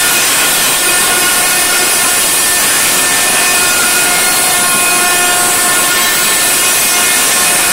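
Very loud DJ sound-system output, overloaded on the phone microphone into a steady hissing wash with a few held tones and no clear beat.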